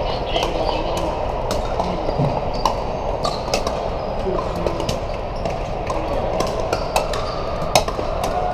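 Pickleball paddles hitting plastic balls on many courts at once: an irregular scatter of sharp pops, about two or three a second, ringing in a large hall over a steady background din.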